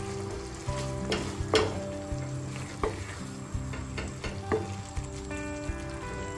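Food sizzling in a frying pan while a spatula stirs it, with five sharp knocks and scrapes of the spatula against the pan, the loudest about a second and a half in.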